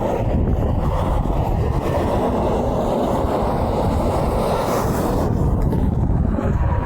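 Steady rumble of passing highway truck traffic, with wind buffeting the microphone.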